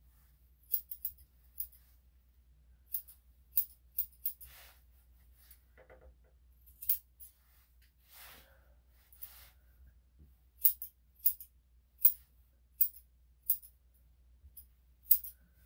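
Steel grooming scissors snipping fur on a dog's paw: short, crisp metallic snips, scattered at first, then a steadier run of about one a second near the end.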